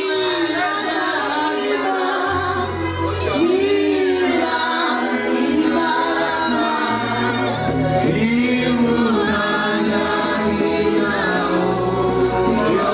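A church choir singing, the voices gliding between notes, over long held low bass notes.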